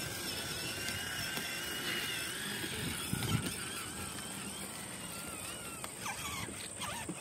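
Electric motor whine of a battery-powered ride-on toy motorcycle, its pitch wavering up and down as the toy's speed changes, fading out near the end.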